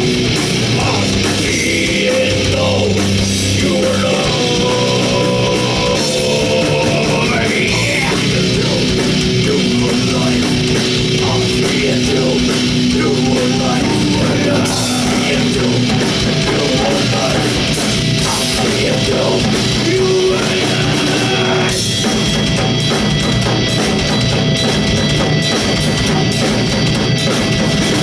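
Live rock band playing loud and steady, with a drum kit and guitar.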